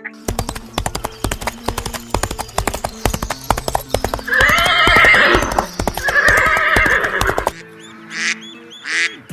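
A horse's hooves beating fast, with two whinnies in the middle. The hoofbeats stop suddenly about a second and a half before the end, and short repeated animal calls follow.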